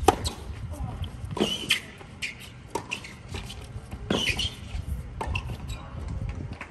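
A tennis rally on a hard court: a ball struck back and forth by racquets, about five sharp hits a second and a bit apart, the first and nearest the loudest. Between the hits come short high squeaks, typical of tennis shoes on the court surface.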